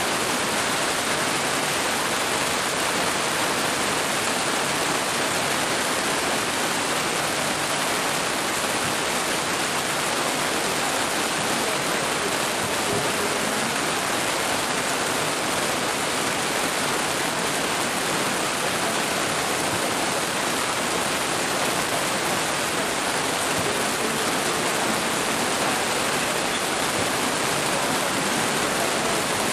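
Heavy downpour: rain falling steadily onto a grass pitch as an even, unbroken hiss.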